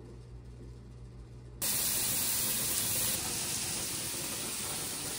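A low steady hum, then about a second and a half in a loud, steady sizzle starts: diced meat frying in a pan.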